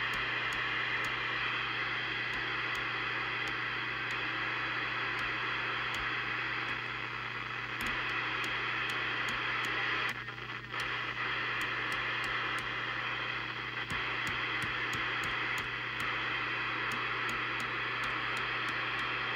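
Harrier CBHQ UK 27/81 FM CB base station's speaker giving a steady receiver hiss on empty channels as its channel selector is stepped through the band, with small clicks as it changes channels. A steady low hum runs underneath, and the hiss dips briefly a little past halfway.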